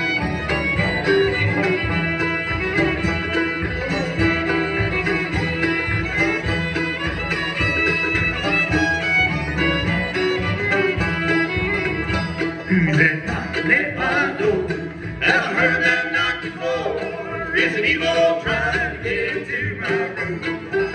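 Live bluegrass band playing, fiddle and banjo to the fore. A singing voice comes in about halfway through.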